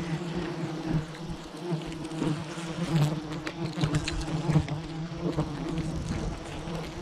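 A swarm of giant honeybees buzzing thickly around, a steady droning hum with scattered light clicks, the bees stirred up after their nest has been cut from the tree.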